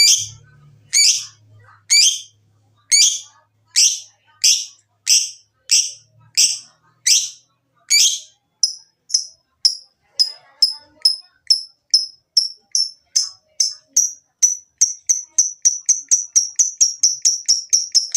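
Lovebird ngekek call: sharp, harsh chirps repeated about twice a second, which about halfway through turn into shorter, clearer notes. These speed up into a rapid, even chatter by the end.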